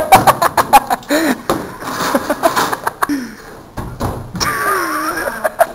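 Two teenage boys scuffling: a rapid run of sharp smacks and thumps, with yelps and shouts between them.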